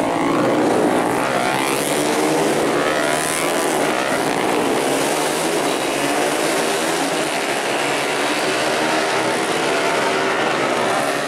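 Four-stroke 150 cc underbone racing motorcycles running at high revs around the circuit, several engine notes overlapping and rising and falling as they accelerate and shift; the nearest bike passes close in the first second.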